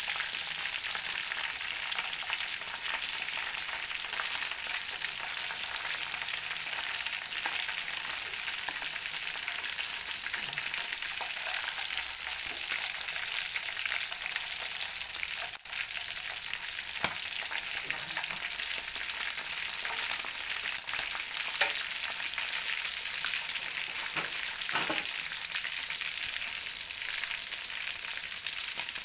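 Chicken and pork belly pieces frying in hot oil: a steady sizzle with scattered crackles and pops. The pieces are turned with chopsticks partway through. The sound drops out for an instant just past halfway.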